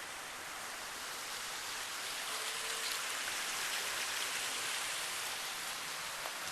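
Water spilling and splashing down a boulder waterfall: a steady, even hiss that grows a little louder about two seconds in.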